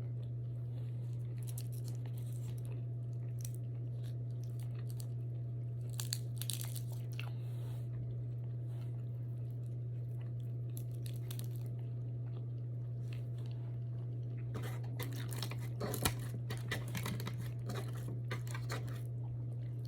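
A person chewing crunchy food close to the microphone, in two bouts of crackly bites, the second longer, over a steady low hum.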